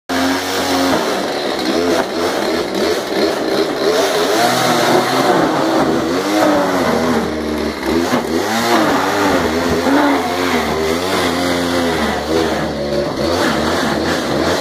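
Chainsaw running hard as it cuts through an upholstered couch, its pitch repeatedly dropping under load and rising again as the chain frees up.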